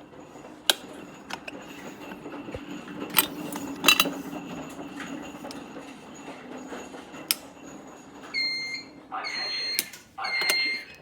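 Scattered clicks and knocks, then about 8 seconds in an EST-3 voice-evacuation fire alarm begins sounding through its speakers: a steady high alert tone pulsing on and off, a few short pulses of about half a second each.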